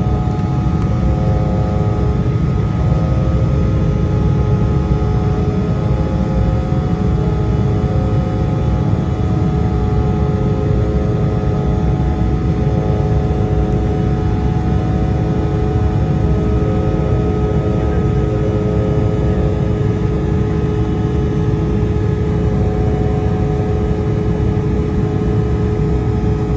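Embraer E175's GE CF34-8E turbofan engines at climb power, heard inside the cabin: a loud, steady rumble with several steady whining tones held above it.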